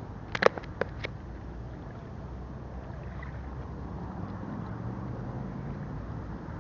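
A motor's low, steady hum, with four sharp clicks in the first second.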